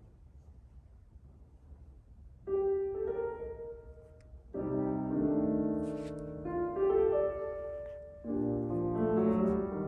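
Steinway grand piano played solo: after about two and a half seconds of quiet, a chord sounds and fades, then fuller chords and melody come in about four and a half seconds in and again near the end.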